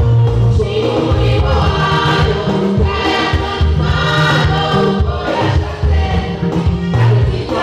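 Gospel praise singing by a group of women's voices on microphones, over an accompaniment with a heavy, sustained bass line.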